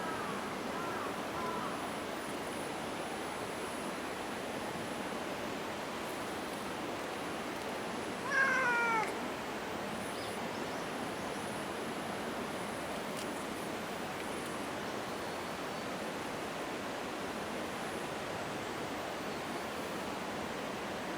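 Domestic cat meowing: a few short, soft meows in the first couple of seconds, then one loud meow falling in pitch about eight seconds in. Steady rushing noise underneath.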